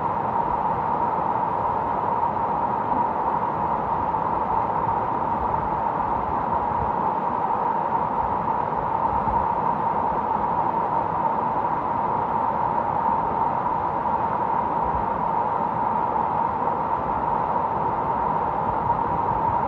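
Tall mountain waterfall plunging onto rocks, with the stream below cascading over boulders: a steady, unbroken rush of water.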